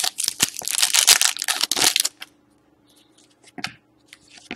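Foil wrapper of a hockey trading-card pack crinkling and tearing as it is ripped open by hand, a dense crackle lasting about two seconds. Then a few faint clicks as the cards are slid out and handled.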